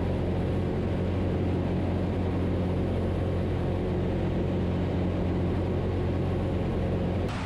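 Steady drone of a Zenith CH 750 Cruzer light aircraft's engine and propeller in cruise flight, heard from inside the cabin. Near the end it shifts abruptly to a quieter, hissier drone.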